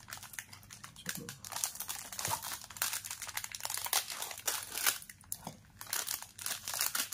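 Metallised plastic snack pouch crinkling as hands grip and pull at its sealed edge to open it, a run of irregular crackles.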